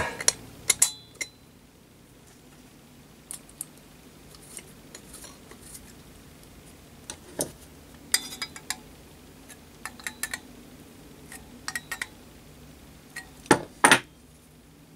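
Scattered small metallic clicks and clinks as the lid and nut on a brass Hero steam engine sphere are fitted and tightened with pliers, with two louder knocks close together near the end.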